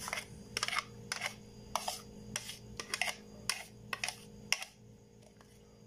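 A metal spoon scraping thick dip out of a clear plastic food-processor bowl into a ceramic bowl: a run of short scrapes and taps, about two a second, thinning out after about four and a half seconds. A faint steady hum lies underneath.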